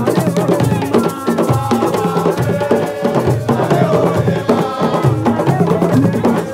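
Assiko percussion ensemble playing a dense, driving rhythm on drums, including the square frame drum, with sharp woody clicks.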